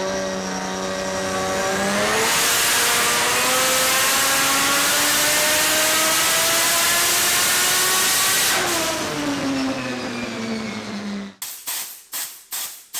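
Turbocharged PPM-built race engine with an HPT F3 7175 turbo on a chassis dyno. It runs at low revs, then about two seconds in goes to full throttle for a pull, revs climbing steadily for about six seconds before backing off and winding down. This is a test pull after four cracked spark plugs were replaced to cure a misfire. Near the end, after a cut, come rhythmic clicks about three a second.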